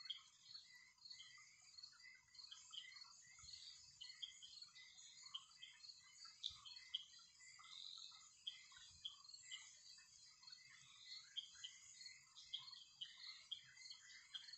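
Faint sizzling and crackling of hot oil around breaded chicken patties deep-frying in a pan, with many quick irregular pops.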